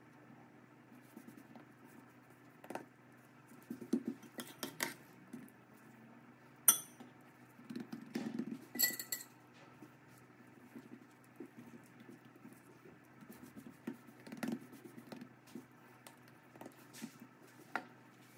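Soft handling sounds of hands patting and pressing potato dough over a starch-dusted silicone mat while shaping zrazy. A few light, ringing clinks come at intervals, the sharpest about a third of the way in.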